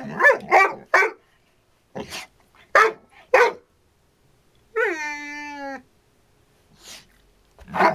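Young yellow Labrador retriever barking at an unfamiliar mandarin orange. A quick run of short barks, then a few more spaced barks, one long drawn-out howl-like cry about five seconds in, and single barks near the end.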